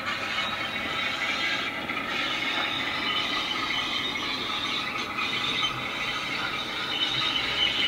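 Bachmann class 08 diesel shunter model's DCC sound decoder playing the shunter's diesel engine running as the locomotive moves off with a wagon, heard through the model's small speaker. The sound is steady and rattly, with little bass.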